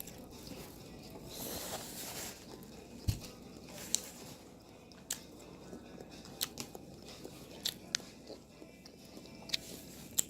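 Close-miked mouth sounds of a person eating steak and rice: chewing and smacking, broken by scattered sharp clicks and a thump about three seconds in.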